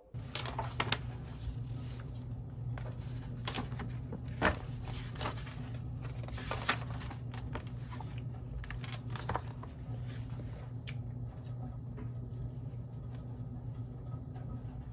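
A steady low hum, with scattered sharp clicks and light rustling through the first ten seconds or so.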